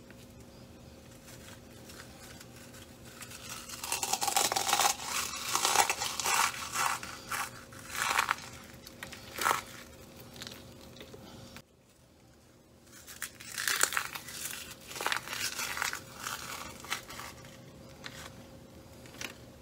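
Crunchy Cheetos crushed by hand over a tray of food, crackling and crunching in two spells with a short pause between, over a faint steady hum.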